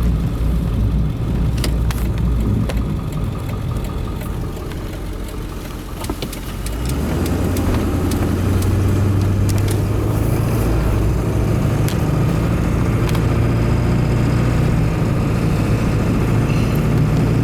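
Cab of a 2002 Ford F250 on the move: the straight-piped 7.3 Powerstroke turbo diesel and road noise. The sound eases off a little for the first six seconds, then about seven seconds in the engine comes back on load and holds a steady low drone, with small clicks and rattles throughout.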